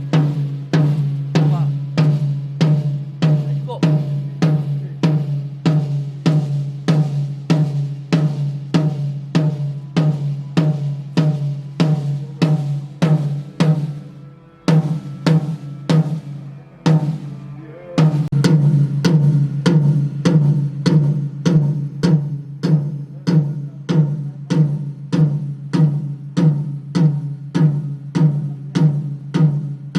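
Drum kit sound check: one tuned drum struck over and over at an even pace, about two hits a second, with two short breaks about halfway through before the strokes resume.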